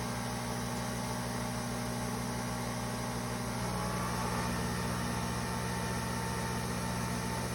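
Nespresso VertuoPlus coffee machine running a brew cycle: a steady motor-and-pump hum that shifts in pitch a little past halfway through.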